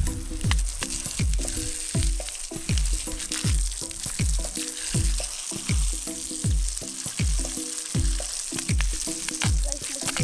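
Backing music with a steady kick-drum beat about twice a second, over a steady hiss of water spray hitting a toy monster truck.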